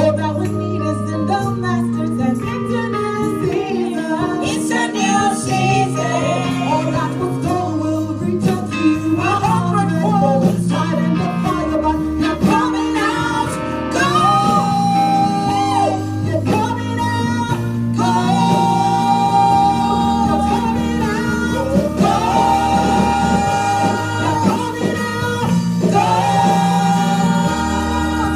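Live gospel choir singing long held notes over a band, with a bass line stepping through chord changes every couple of seconds.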